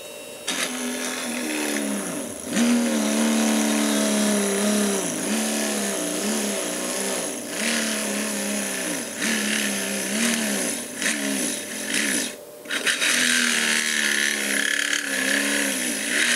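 Innocraftsman mini drill press's small DC motor running while drilling. Its whine repeatedly sags in pitch and recovers as the bit loads it, with a brief stop a little past two-thirds of the way through. The motor is bogging down under load, fed from a bench supply at 10 volts with current limited to 2 amps.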